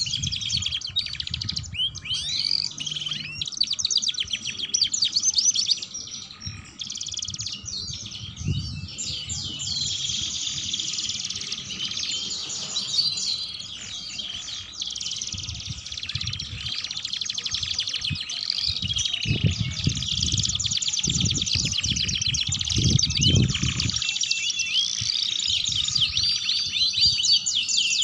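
Domestic canaries singing without pause: a long, fast chattering warble with rolled trills, the full 'gacor' and 'ngeriwik' style of canary song. A few low thumps sound for several seconds past the middle.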